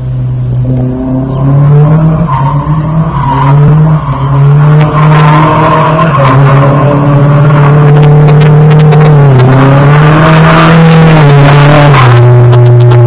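Drift car sliding sideways with its engine held at high revs and its tyres screeching. The tyre noise builds from about four seconds in, and the engine pitch dips briefly twice in the second half.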